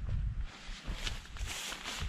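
Lightweight waterproof rain jacket's shell fabric rustling as it is pulled off the arms, over irregular low rumbling thuds.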